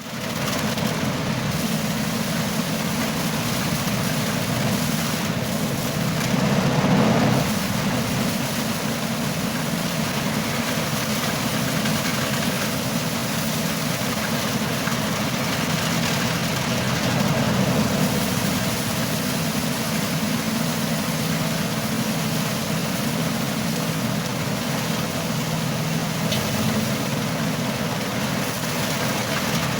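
Engine of a rice threshing machine running steadily at constant speed, with a continuous mechanical rumble and rattle; it cuts in abruptly at the start.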